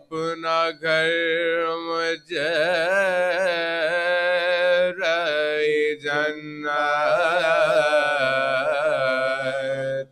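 A man's unaccompanied voice chanting a marsiya, an Urdu elegy. He sings in long held phrases that waver in pitch, with short breaths between them.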